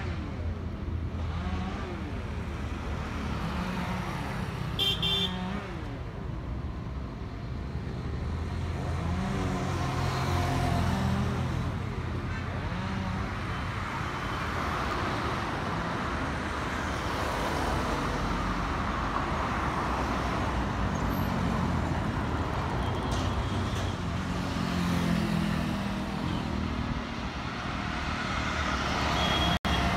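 Steady road traffic: cars, motorcycles and an auto-rickshaw passing with engine and tyre noise that swells and fades as each goes by, and a brief horn toot about five seconds in.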